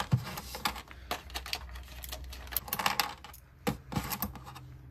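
Small hard plastic accessory pieces, the figure's effect parts, clicking and clattering against each other as they are picked up and handled by hand, in a quick irregular run of light clicks with a denser flurry a little past the middle.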